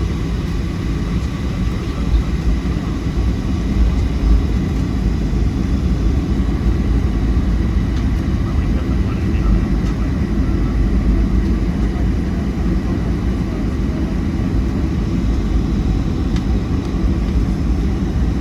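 Steady low rumble heard inside the passenger cabin of a Boeing 737-700, made by its CFM56 jet engines and cabin air running, with a faint high whine under it.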